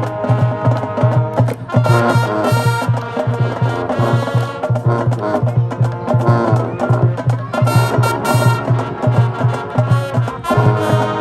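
High school marching band playing a field-show tune: brass chords over a steady, even drum beat, with the brass swelling louder about two seconds in and again near the end.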